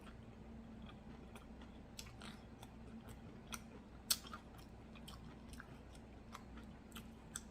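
Close-miked chewing and biting of a fried chicken and waffle sandwich: scattered soft crunches and mouth clicks, with one sharper crunch about four seconds in. A faint steady low hum runs underneath.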